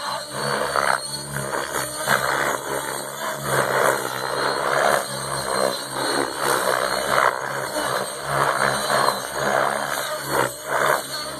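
Radio-controlled helicopter flying aerobatics: its motor and main rotor run continuously, with the blade noise surging and falling away again and again as it is thrown through flips and turns.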